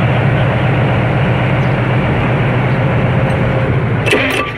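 Caterpillar 3306 six-cylinder diesel being cranked over by its starter motor for its first start after an overhaul: a loud, steady, low churning. Near the end there are brief hissing bursts and the sound drops off.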